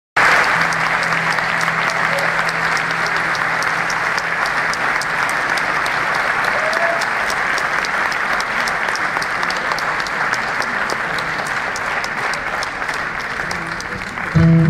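Large concert audience applauding steadily, with a regular run of sharp ticks through it. Right at the end the band's music comes in loudly.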